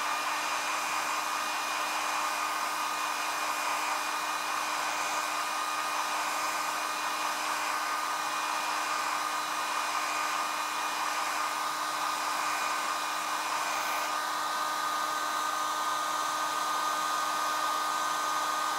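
Hand-held hot-air dryer blowing steadily at close range to dry freshly dabbed leather paint, a rushing airflow with a constant motor whine. About three-quarters of the way through, one of the higher whining tones drops out with a faint click.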